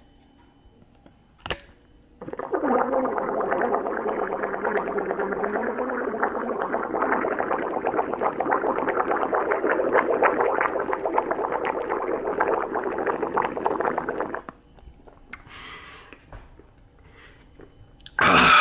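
A man gargling a mouthful of frothy protein shake, a steady bubbling that starts about two seconds in and lasts about twelve seconds before stopping abruptly. A short loud burst comes near the end.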